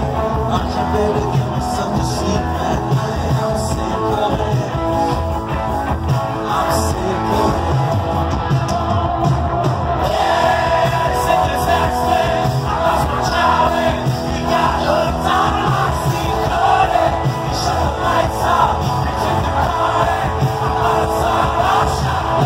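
Rock band playing live, electric guitar and drums under a male lead singer, heard from the crowd on a phone's microphone. The singing comes through more strongly about halfway through.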